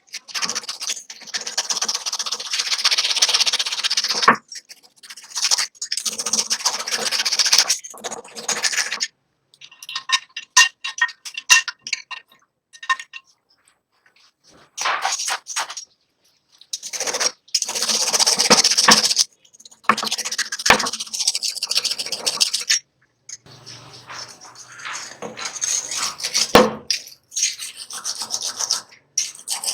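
Abrasive rubbing and scrubbing strokes on a hand-saw blade, in long runs broken by short pauses. About ten seconds in, a few light ringing metallic taps.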